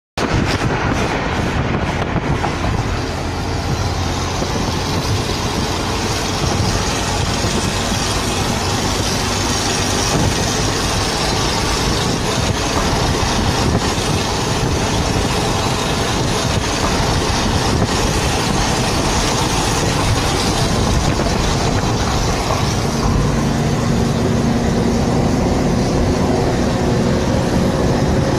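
Steady, loud rushing noise of a car on the move, its road and wind noise buffeting the phone's microphone.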